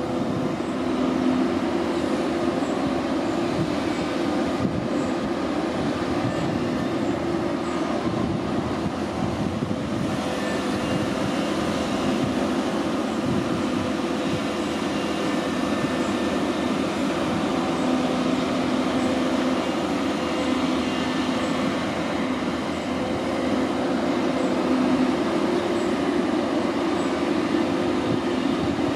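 Diesel engine of a Doosan DX300LC crawler excavator running steadily under load while it digs sand and loads an articulated dump truck: a constant engine hum with tones that swell and fade as the machine works.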